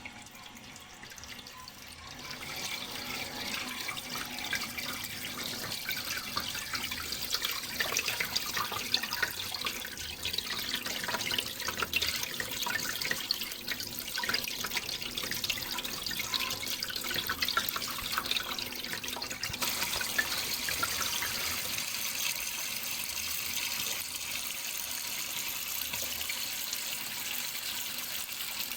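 Running water splashing and trickling steadily, full of small drips and splashes; a little quieter for the first two seconds.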